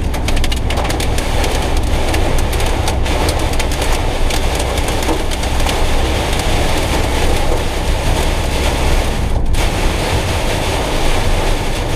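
Heavy storm rain hitting the roof and windscreen of a Citroën Jumper van's cab, a dense patter of hits over the van's steady low engine and road drone. The patter briefly thins about nine and a half seconds in.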